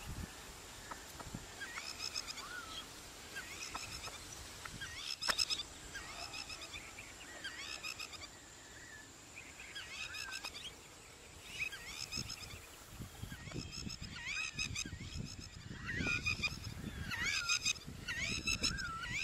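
Birds calling over and over: short, squawky calls that bend in pitch, coming thicker and faster in the last few seconds.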